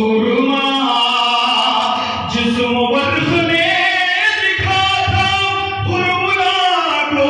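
A man singing devotional verse unaccompanied into a microphone and PA, in long held, gliding melodic lines.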